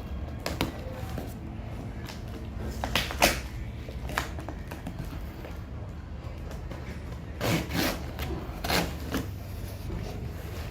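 Cardboard and plastic packaging being handled and opened: scattered rustles and clicks, with a few louder ones about three seconds in and again around eight seconds in, over a steady low hum.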